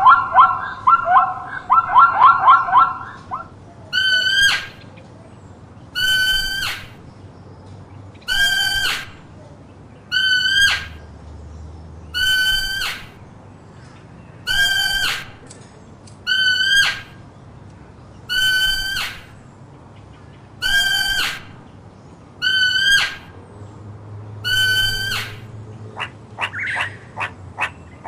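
An animal chattering rapidly for about three seconds, then giving a short harsh call eleven times, about every two seconds. A quick run of clicking calls comes near the end.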